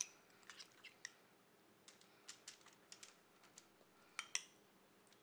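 Metal spoon clicking and scraping against a glass bowl while scooping up a thick marinade: a scatter of light, irregular taps, the loudest a quick pair about four seconds in.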